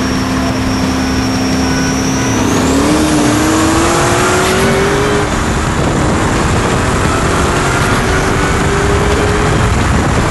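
Modified V8 street cars at full throttle in a roll race: the engine note holds steady, then about two and a half seconds in it climbs hard, drops at a gear change around the middle and climbs again. A faint high whine rises with the revs.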